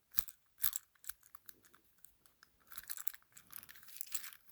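Small clicks and light rattling from handling a die-cast Take N Play toy engine: a few separate clicks, then a quicker patter of small clicks near the end.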